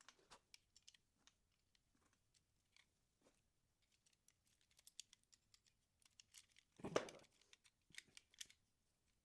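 Scattered small clicks and light handling noises as a battery is taken out of a toy car, with one louder knock about seven seconds in.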